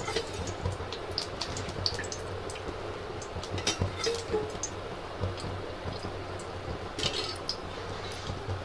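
Oil heating in a steel kadhai on the stove: scattered faint crackles and ticks over a steady low hum and hiss, with a small cluster of crackles about seven seconds in.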